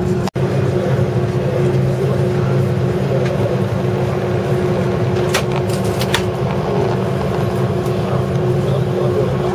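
Steady droning hum inside the cabin of an Airbus A330-300 standing at the stand before take-off, with a few light clicks around the middle.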